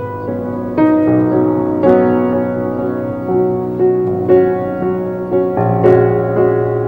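Solo piano being played: chords and a melody, with new notes struck roughly every second and left to ring into one another.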